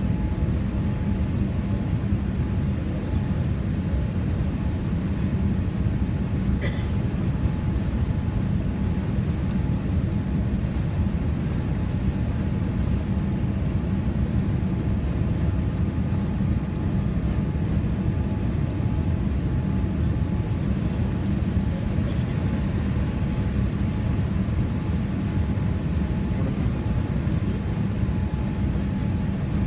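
Steady engine and airflow noise inside the passenger cabin of a Boeing 787-8 Dreamliner on approach to landing, with a faint steady tone above the rumble.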